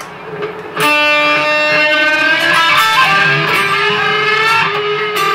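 Electric guitar being played: after a quieter first second, a chord struck about a second in rings out, and the held notes then move to others.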